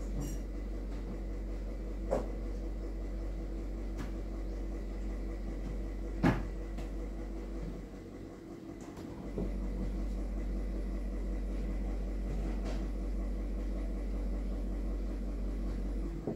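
A steady low hum, like a fan or electrical appliance running, with a few faint knocks; the sharpest knock comes about six seconds in. The hum drops away briefly near the middle, then comes back.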